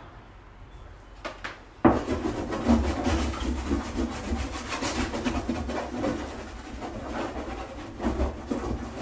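Charcoal stick scribbling and rubbing across a wooden painting panel in quick, scratchy strokes, beginning with a sharp tap about two seconds in.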